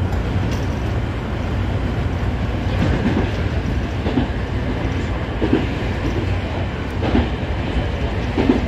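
Nankai 2000 series electric train running at speed, heard from the front cab: a steady low rumble with wheel clacks over rail joints every second or so.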